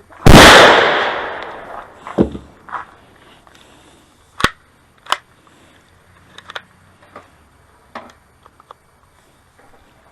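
A single loud rifle shot fired close by, ringing out and fading over more than a second. It is followed by several fainter, sharper cracks of gunfire a few seconds later.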